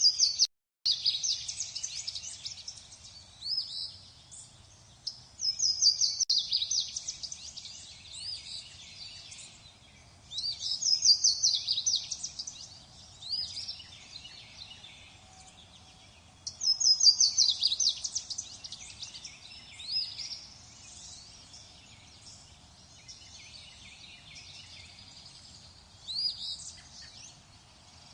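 Songbirds singing: a loud phrase of quick, repeated high notes comes every few seconds, with softer chirps and calls between. The sound cuts out briefly right at the start.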